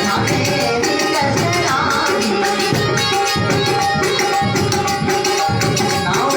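Instrumental interlude of a Rajasthani bhajan: a dholak drum played in a fast, driving rhythm with small hand cymbals jingling on the beats, over a few held melodic notes.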